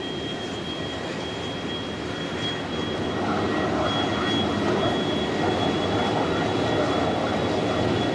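Kawasaki T-4 jet trainer's turbofan engines running during engine start: a rushing jet noise with a steady high turbine whine, growing louder about three seconds in as the engines spool up.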